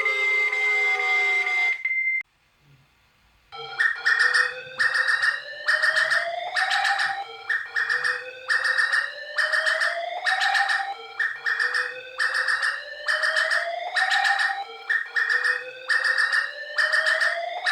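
Electronic emergency alert tones. A steady tone with rising sweeps cuts off about two seconds in, and after a short gap a new alarm starts: beeping about twice a second over a slow rising tone that repeats about every two seconds.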